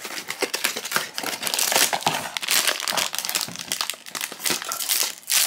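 A cardboard blind box being pulled open by hand and its packaging crinkled and torn: a dense run of crackles and rustles.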